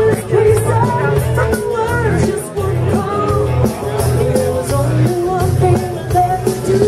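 Live band playing an upbeat rock-and-roll style song with a singer, the drums keeping a steady beat under the melody.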